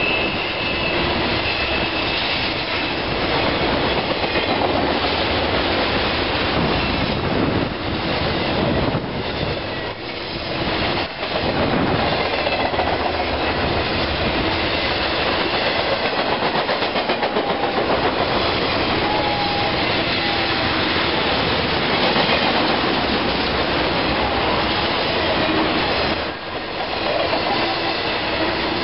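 Freight train of flatcars carrying highway trailers rolling past at close range: a steady rumble and rattle of steel wheels on the rails, with short dips in level around eleven seconds in and again near the end.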